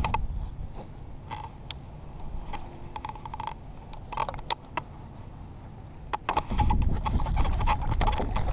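Baitcasting reel clicking and creaking as it is cast and cranked, with scattered sharp ticks and short runs of rapid clicks. About six and a half seconds in, a heavy low rumble joins.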